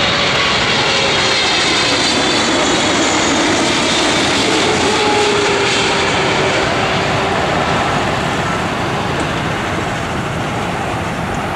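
Boeing 777-300 jet engines running as the airliner passes low overhead on final approach: a loud, steady roar with a whine that falls in pitch as it goes by, then eases slightly as it moves away.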